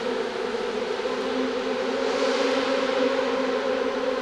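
A steady mechanical buzzing hum with two held low tones and a hiss above them, swelling slightly about two seconds in.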